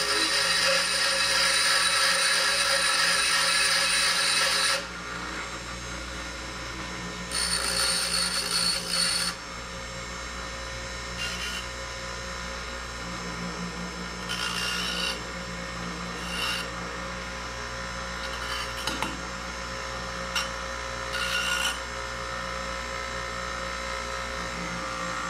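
Power grinder running steadily, with bursts of harsh grinding each time the hook of a wire retaining ring is pressed against it: one long grind at the start, another a few seconds later, then several short touches to check the fit.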